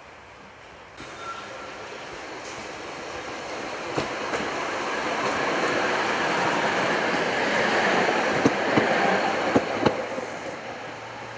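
Tatra T6A2 tram passing close by on track through the woods. Its running noise builds to a peak and then eases off, with several sharp clacks in the last few seconds as the wheels cross rail joints.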